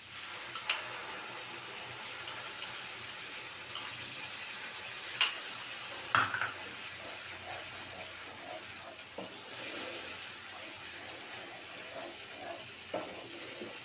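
Onion-tomato masala sizzling steadily in a frying pan as a green paste is scraped in from a bowl and stirred with a wooden spatula. There are a few sharp knocks of the spatula and bowl against the pan.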